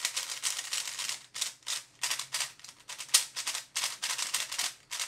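Maru XD 3x3 plastic speedcube being turned by hand straight out of the box, a quick irregular run of clicking turns. The cube sounds rattly, the mark of a loose, not-yet-set-up cube.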